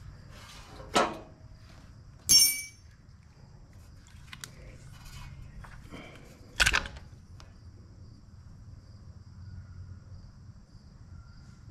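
Metal hand tools and carburetor parts being handled: a few sharp knocks and clinks, about one, two and a half, and seven seconds in, the middle one ringing like metal struck on metal, with small clicks between.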